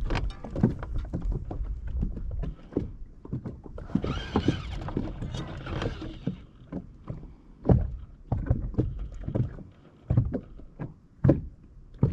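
Scattered, irregular knocks and thumps of gear being handled in a small fishing boat, with a short stretch of rustling about four seconds in.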